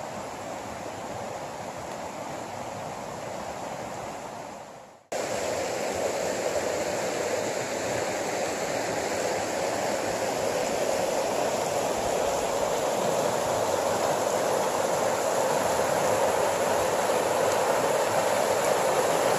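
Rushing creek water running high and fast over shallow riffles, a steady rush. It fades out about five seconds in and returns louder and closer.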